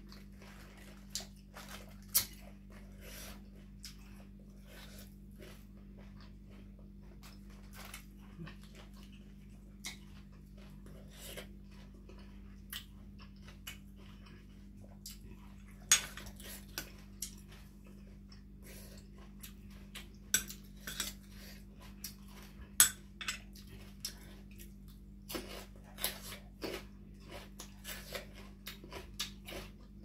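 Metal spoon clinking against a plate while scooping dipping sauce, amid the handling of crisp Chinese cabbage leaves. Scattered sharp clinks, the loudest about 2, 16 and 23 seconds in and more frequent over the last ten seconds, over a low steady hum.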